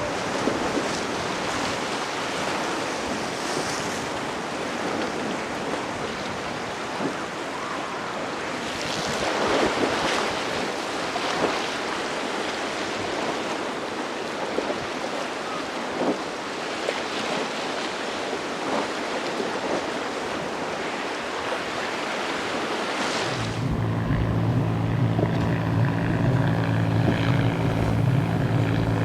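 Ocean waves and wind buffeting the microphone, with a few brief splashes. About 23 seconds in, the sound changes suddenly to a steady, low engine drone.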